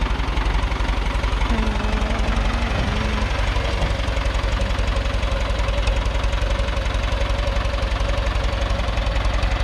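Ford 6610 tractor's four-cylinder diesel engine running steadily with a rapid, even throb.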